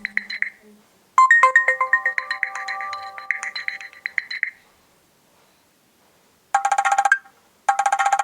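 Nokia C2-01 mobile phone ringtones and alert tones played back one after another: one electronic melody ends about half a second in, a second quick melody runs from about a second in to four and a half seconds, then a third tone sounds as two short trills of rapid pulses near the end.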